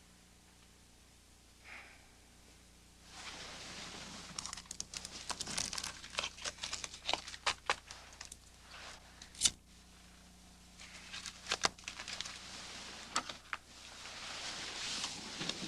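Crinkly rustling and handling noise with many small, irregular sharp clicks and crackles, one crack louder than the rest about halfway through.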